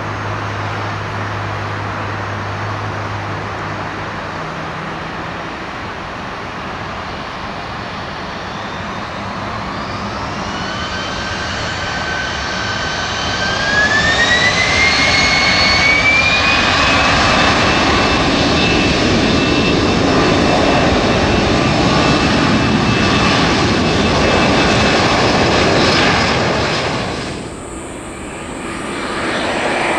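Airbus A320 jet engines spooling up to takeoff thrust. A whine climbs in steps from about a third of the way in, then settles into a loud, steady run with a strong rush. Near the end the sound cuts abruptly to another jet airliner approaching, growing louder.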